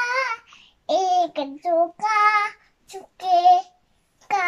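Young boy singing a Marathi song unaccompanied, in short held phrases with brief pauses for breath between them.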